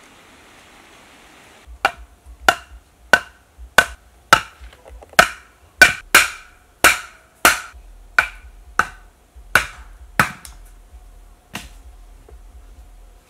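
A series of about seventeen sharp knocks or taps with a brief ringing tail, roughly every half second to a second, stopping near the end. Before them, a faint steady hiss.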